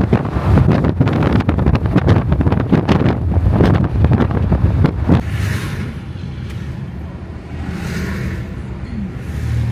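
Wind buffeting the microphone in gusts over road traffic noise, easing about five seconds in. Cars then pass by on the highway with tyre and engine noise.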